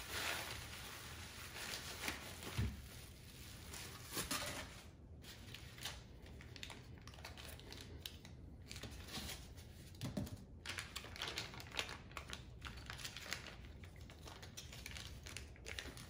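Bubble wrap and plastic zip-lock bags crinkling and rustling as they are unwrapped and handled, in an irregular run of small clicks and crackles with a few soft knocks.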